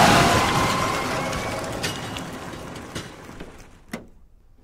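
Vehicle sound effect for an animated van: a rushing skid-and-engine noise that fades away over about four seconds, with a few small clicks near the end.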